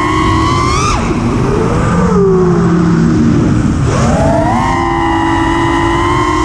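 FPV freestyle quadcopter's brushless motors and propellers whining, the pitch climbing and then cutting off sharply about a second in, staying low for a few seconds as the throttle is chopped, then jumping back up about four seconds in to a steady high whine as the throttle comes back on. A rough rumble of wind on the onboard camera runs underneath.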